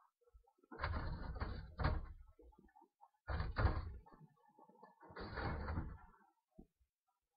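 Muffled knocking and rustling close to the microphone inside a wooden rabbit hutch, in three bursts of about a second each.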